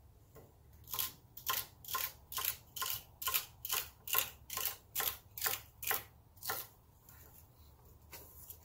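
A kitchen knife chopping celery stalks on a wooden cutting board: about a dozen even cuts, roughly two a second, each a crisp snap of the stalk ending in a knock on the wood.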